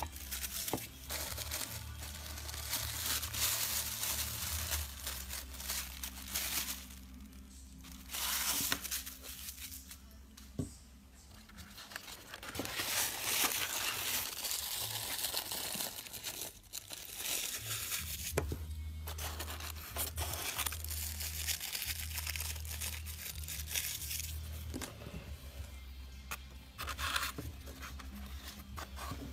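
Plastic packaging crinkling, rustling and tearing in irregular bursts as small diecast scale-model crane parts are unwrapped and handled.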